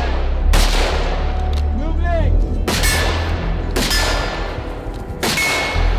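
Four rifle shots about a second apart, from AR-style rifles fired during a bounding drill; some shots are followed by a short ringing tone.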